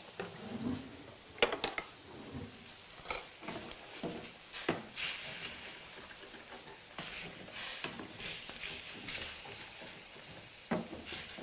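Mushrooms and wine sizzling in a stainless steel skillet, stirred with a wooden spatula that scrapes and taps against the pan now and then. The wine is boiling so that its alcohol cooks off.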